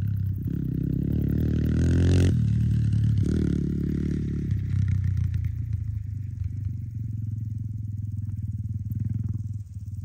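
A motor vehicle's engine running with a low, steady drone, swelling and rising in pitch about two seconds in and again around three to four seconds, then settling back.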